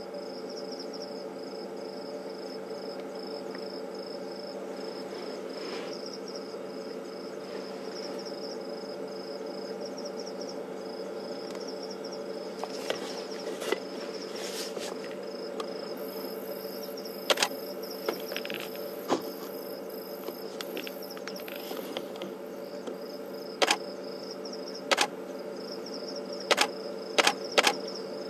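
Night insect chorus of crickets: a steady high trill over a steady low hum, with a handful of short sharp clicks from about halfway in.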